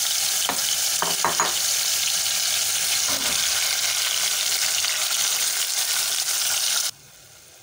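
Marinated minced beef sizzling loudly in hot oil, with a steel spoon stirring it and knocking against the metal pot a few times in the first second or two. The sizzle stops abruptly near the end.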